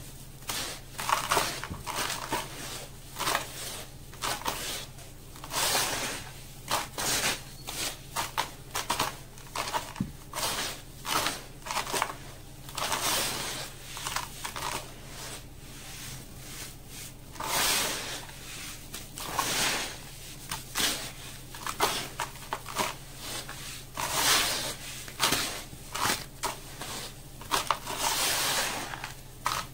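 Hands squeezing and crumbling clumps of damp, gritty sand-cement mix in a plastic bucket: irregular crunching and gritty crumbling, clump after clump.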